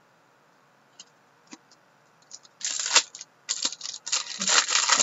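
Foil wrapper of a hockey card pack being torn open and crinkled. A short burst of crackling comes about two and a half seconds in, then a longer, louder run of crinkling from about three and a half seconds on. Before that there are only a few faint clicks.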